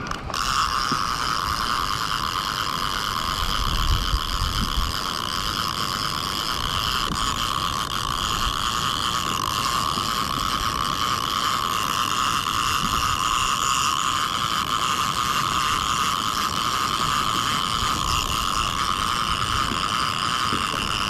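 A steady mechanical whine that comes in suddenly and holds an even pitch, with a few low thumps about four seconds in.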